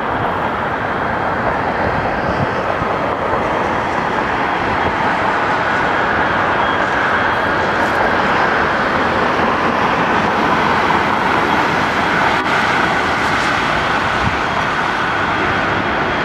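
Boeing 767's twin jet engines at takeoff thrust on the takeoff roll: a steady, loud roar with a faint whine, growing a little louder over the first few seconds.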